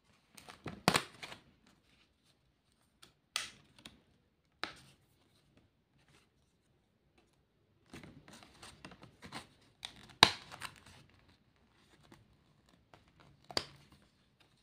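Card sticker sheet being handled as pear stickers are peeled off their backing: scattered rustling and sharp crackles, loudest about a second in, around ten seconds in and near the end.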